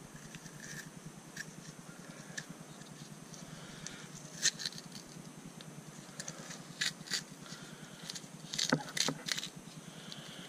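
Oil-soaked pleated paper media of a cut-open Honda motorcycle oil filter being handled and pulled apart by hand: faint rustling and scraping, with a few sharp crackles about four seconds in, twice around seven seconds, and twice near nine seconds.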